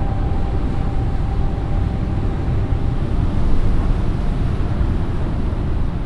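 Steady, deep roar of strong wind buffeting the microphone over heavy seas.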